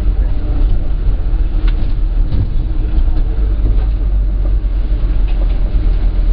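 Minibus engine and road rumble heard from inside the cabin while driving, a steady heavy low drone with a few light knocks.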